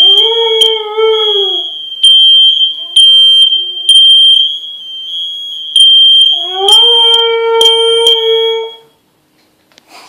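Siberian husky howling along with a shrill, high-pitched smoke alarm. There are two long howls: the first at the start, rising and then falling in pitch, and the second about six seconds in, rising and then holding steady. The alarm cuts off shortly before the end.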